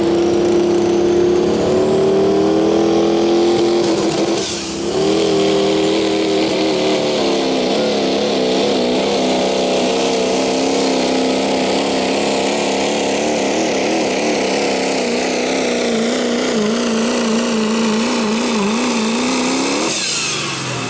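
Turbocharged diesel engine of a Chevrolet Silverado pulling truck running at full throttle, hauling a weight-transfer sled. The engine note dips and drops in pitch briefly about four and a half seconds in, then its pitch wavers up and down, and it falls away near the end as the pull finishes.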